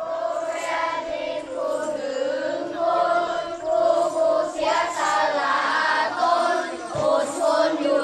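A group of young children singing together in unison, a simple sustained song.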